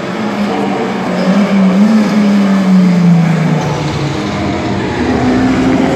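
Racing car engines running hard. One engine note holds, is loudest around two to three seconds in, then drops away about three and a half seconds in, and a second engine note comes in near the end.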